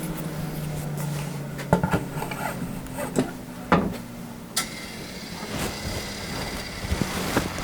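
Bandsaw running with a steady low hum while wooden boards knock against the table and fence several times. About four and a half seconds in, a sharp knock and a higher steady whine with more hiss join the hum.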